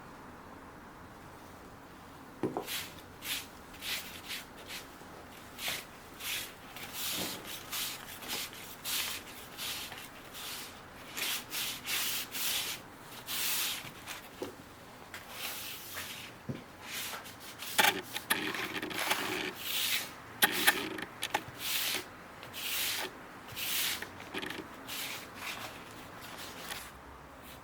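Repeated abrasive rubbing strokes worked by hand, scratchy and hissy, coming about one to two a second. They start about two seconds in and run on until near the end, with a few sharper scrapes partway through.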